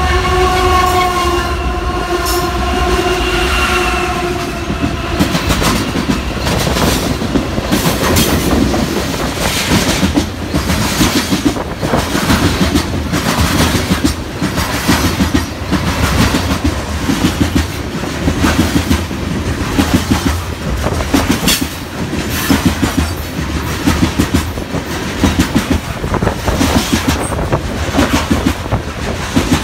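Freight locomotive's multi-chime air horn sounding a chord that cuts off about four seconds in, then a long freight train of open-top hopper cars rolling past close by, with rapid rhythmic clickety-clack of the wheels over rail joints.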